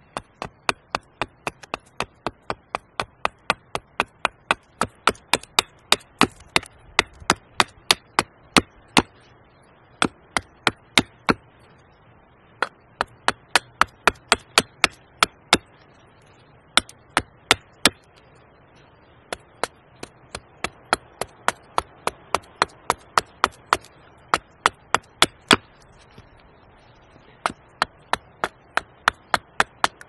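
A heavy knife blade chopping into a wooden board to rough out a spatula blank: sharp wooden knocks about three a second, in runs with short pauses between.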